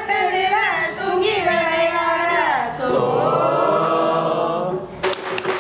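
A group of women singing a tribal folk song together, unaccompanied; the melody slides down about halfway through into a long held note. Just before the end, a run of quick hand claps starts.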